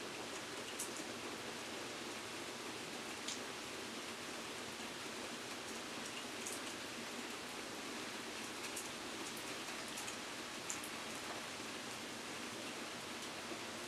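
Steady rain falling, an even hiss with occasional single drops ticking close by.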